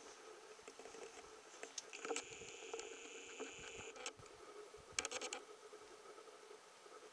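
Camcorder zoom motor whirring steadily for about two seconds as the lens zooms in, followed a second later by a quick run of sharp clicks, over faint camera handling ticks and hum.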